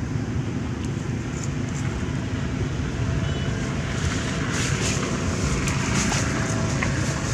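Steady low outdoor rumble, with light rustling and crackling from about four seconds in.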